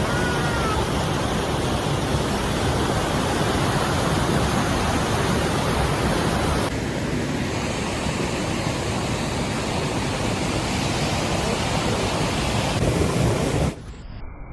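Waterfall: a steady, loud rush of falling water. Its tone shifts about halfway through, and it drops away suddenly near the end.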